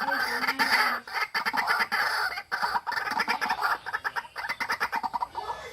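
White-breasted waterhen calling: a long run of rapidly repeated harsh notes that speeds up into quick, even pulses in the second half and thins out near the end.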